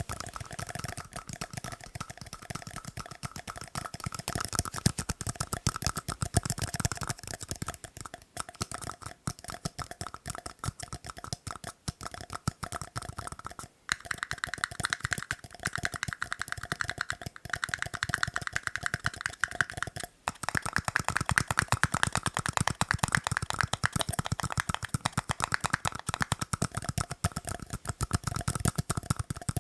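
Rapid tapping on tiny cups, each tap ringing faintly with the cup's pitch. The ringing pitch changes a few times, with short pauses about 14 and 20 seconds in.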